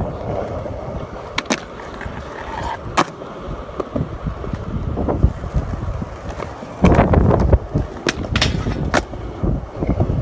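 Skateboard wheels rolling on concrete, broken by several sharp clacks of the board popping and landing, with a grind across a concrete ledge and a louder stretch about seven seconds in.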